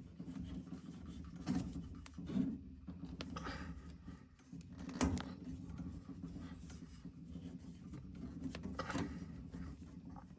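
Mini tubing cutter being turned around a copper pipe, with light scraping and several short sharp clicks as the cutter wheel works into the pipe.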